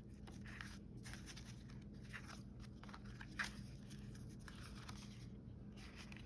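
Faint rustling and scraping of cardstock being handled and pressed down as a glued paper strip is lined up, with a light tap about three and a half seconds in, over a faint steady hum.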